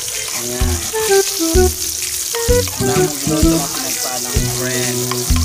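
Sliced onion and yellow bell pepper sizzling in hot oil in a frying pan as they are stirred with a spoon, under background music with a melody of short stepped notes and a bass line.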